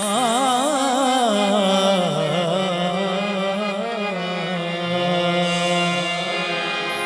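Qawwali lead singer's wordless alap over a steady harmonium chord: quick wavering ornaments for the first two seconds, then settling into long held notes.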